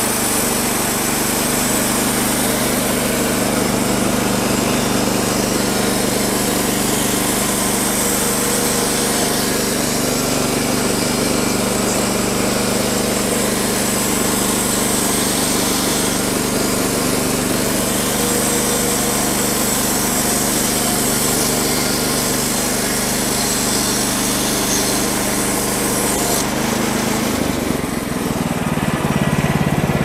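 A portable band sawmill's small gasoline engine runs at steady full throttle while the band blade saws through a white oak log, with a hiss from the blade over a steady engine drone. Near the end the hiss drops away and the engine note changes.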